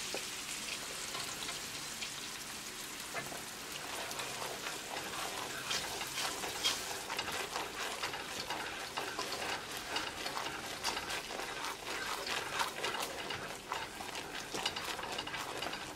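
Brown sugar and water caramel syrup bubbling and sizzling in an aluminium kadai, stirred with a wooden spatula: a steady crackling hiss with the spatula scraping the pan. The syrup is boiling down to the one-thread stage over low heat.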